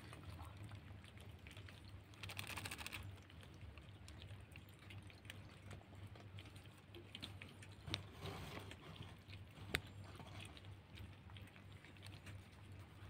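Several kittens crunching dry cat kibble, faint irregular crunches and clicks over a low steady hum, with two sharper clicks in the second half.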